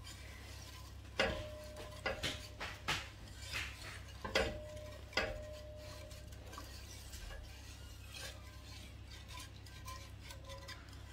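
A utensil stirring and scraping in a metal pot of rice and milk. There are several sharp knocks against the pot in the first half, a few of which leave the pot ringing briefly, and softer scraping follows.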